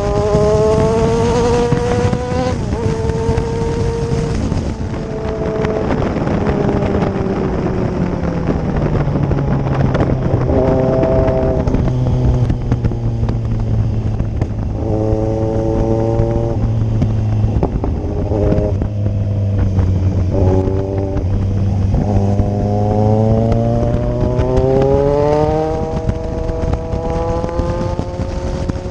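Kawasaki Z1000 inline-four engine under way, with wind noise throughout. The engine note climbs with short breaks at gear changes, falls away, holds steady for a stretch, then climbs again through the gears near the end.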